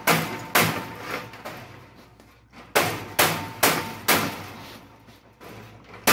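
Hammer blows on the steel seat frame of a '51 Chevy truck bench seat, banging its two halves together. The blows come in two quick runs with a pause of about a second and a half between them, each strike ringing briefly.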